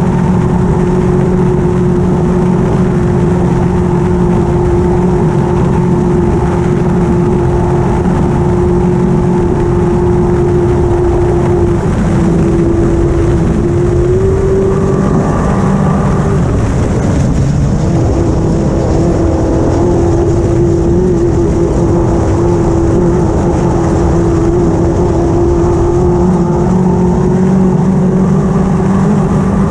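Off-road race buggy's engine held at steady high revs at racing speed, over a constant rush of wind and dirt-track noise. About twelve seconds in, the engine note drops a little and then briefly rises again. For a few seconds after that it wavers before settling back to a steady pitch.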